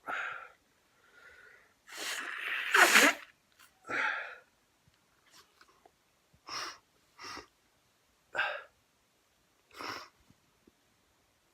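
A person's sneezing fit: a quieter sound at the start builds to one loud sneeze about three seconds in, with another a second later, followed by four short, quieter sounds spaced a second or more apart.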